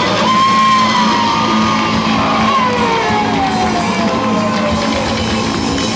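Live rock band playing loud, an instrumental passage with no singing; a long sustained note slides slowly down in pitch across it.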